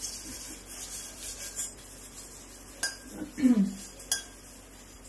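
Stainless steel pots being handled and scrubbed at a steel kitchen sink: faint scouring with two sharp metal clinks, about three and four seconds in. Between the clinks comes a brief falling squeak, the loudest moment.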